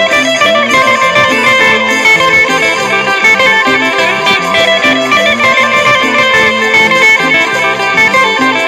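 Stratocaster-style electric guitar playing a melodic line over a full band backing with a moving bass line and keyboard.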